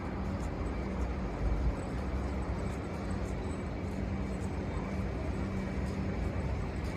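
Steady low city background noise: distant traffic with a faint low hum, and a small swell about a second and a half in.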